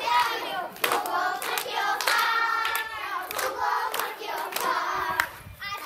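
A group of young girls singing a children's song together, clapping their hands along to the beat.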